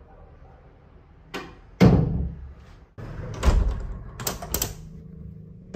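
An interior door pushed shut, a light click and then a heavy thud as it closes. Then a window is pushed closed with a low thump, and its handle turned with two sharp clicks near the end.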